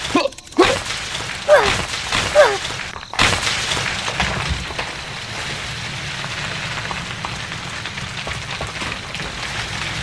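A few short squeaky cartoon-style calls that glide down in pitch. From about three seconds in, a steady rumbling engine-like hiss starts, the sound given to the toy tractor.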